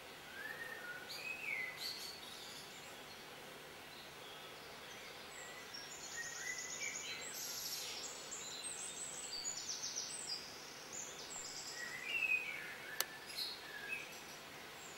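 Wild songbirds singing in woodland, faint: short whistled notes that slide up and down near the start and near the end, and a run of high, rapid trilled phrases in the middle.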